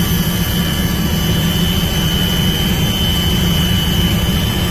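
Loud, steady engine drone with a deep rumble and a constant high whine, typical of a patrol craft's engine heard from on board.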